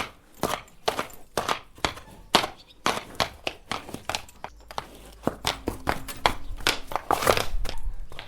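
A horse's hooves clopping at a walk: a steady run of sharp hoofbeats about two a second, coming closer together and louder near the end.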